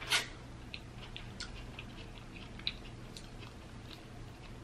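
Chewing corn on the cob: a bite at the start, then scattered soft mouth clicks and smacks.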